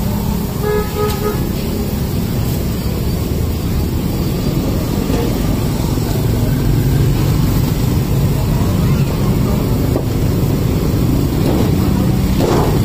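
Steady low rumble of street traffic, with faint voices now and then.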